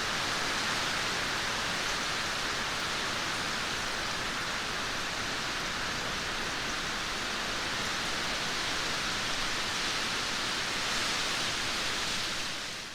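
Steady rainfall: an even, unbroken hiss of rain, fading out right at the end.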